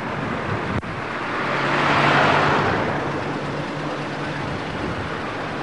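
A road vehicle passing along the street: its engine hum and tyre noise swell to a peak and fade over about three seconds. There is a brief sharp click about a second in.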